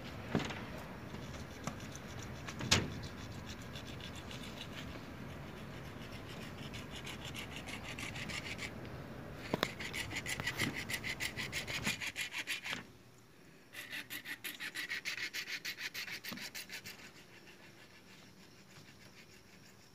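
Hacksaw cutting plastic electrical conduit pipe: fast, even sawing strokes that start about a third of the way in, stop for about a second, then go on for a few seconds more. Before them, a few scattered knocks.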